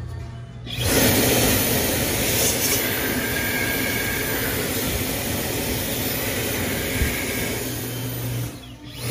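Dyson Airblade dB hand dryer switching on about a second in as a hand enters the slot, blowing a steady rush of air, then cutting off abruptly near the end as the hand comes out.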